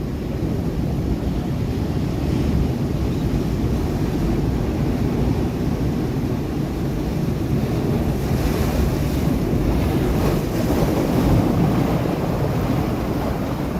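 Sea waves surging and breaking against rocks: a steady low rush of surf, with a louder, hissier break about two-thirds of the way through.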